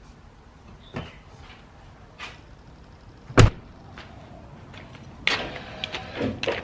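Pickup truck door shutting with a single loud slam about halfway through, among lighter knocks. A patch of clatter and handling noise follows near the end.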